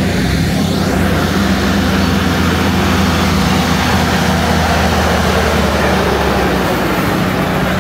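Heavy diesel engine of a vintage truck tractor running steadily at low speed as it rolls slowly on gravel, a steady low hum.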